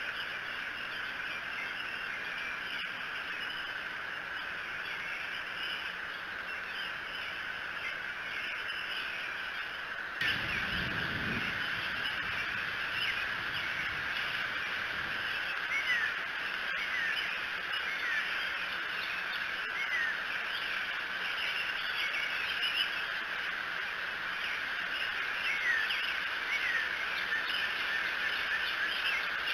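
Outdoor bird chorus around the nest: many short chirps and a few quick down-slurred calls over a steady background hiss. About ten seconds in, the sound steps up suddenly with a brief low rumble, and the calls are louder after it.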